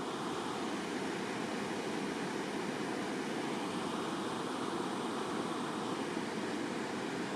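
Water rushing through a river weir, a steady even rush with no change in level.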